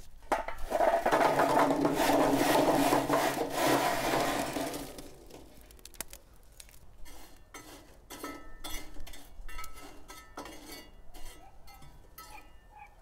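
Lit charcoal briquettes poured from a metal chimney starter into a grill's firebox, clattering and scraping against the metal for about four seconds. Then scattered clinks and scrapes as the coals are pushed about with metal tongs.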